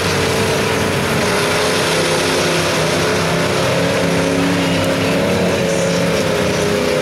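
Chevy big-block V8 of a lifted mud truck running hard at high revs as its giant tyres churn through a mud bog, the engine note wavering a little in pitch.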